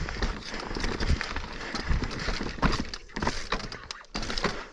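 Mountain bike ridden over a dirt singletrack: tyres rolling on dirt and roots with irregular clacks, knocks and rattles from the bike, easing off briefly about three seconds in.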